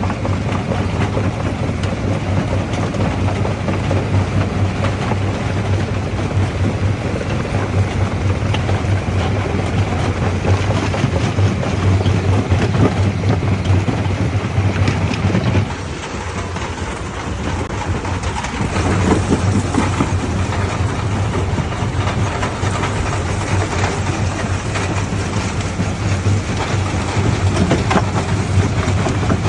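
Large primary jaw crusher running on black stone: a steady low hum under continuous clatter and grinding of rock being crushed. The hum drops out and the sound goes quieter for a couple of seconds a little past halfway, then resumes.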